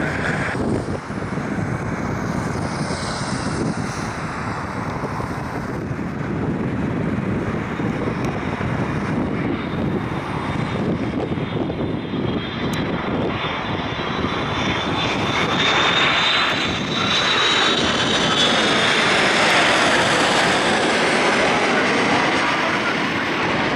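Boeing 787-8 jet airliner on final approach, its engines running with a steady roar that grows louder as it nears and passes low overhead near the end. A high engine whine drifts lower in pitch as the plane approaches.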